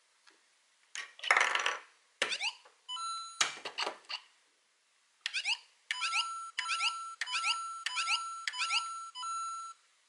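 LEGO Super Mario interactive figure's built-in speaker playing electronic game sound effects as it reads the Lava Bubble and then the Bramball enemy pieces. A short fizzing burst comes first, then quick rising chirps and beeps. From about halfway through, a beeping jingle of rising chirps over a steady tone repeats about seven times: the Bramball defeat sound.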